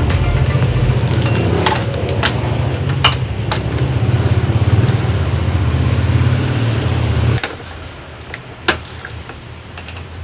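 Homemade scroll saw driven by a Bosch GSB 550 impact drill running steadily with a fast, even rattle from the reciprocating blade mechanism, then stopping about seven seconds in. A few sharp knocks follow.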